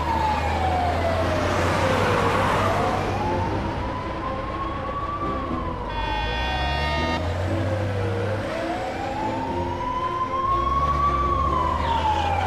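Police car siren wailing in slow rises and falls, about two full cycles, over a steady low drone, with a brief buzzy tone about six seconds in.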